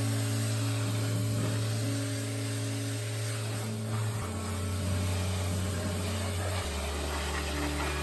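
Pressure washer running and spraying water onto a car's rear bumper and number plate, a steady hiss of spray. Under it is background music whose low bass note changes every couple of seconds.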